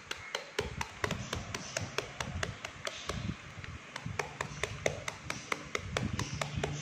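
Kitchen knife rapidly hacking at a hand-held chunk of raw jackfruit to mince it finely: quick, even taps, about five a second.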